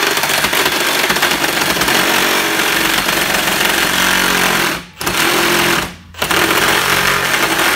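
Cordless reciprocating saw with a long carbide-tooth blade running at full speed and cutting into the steel shell of a water heater tank. The sawing stops briefly twice, about five and six seconds in, then resumes.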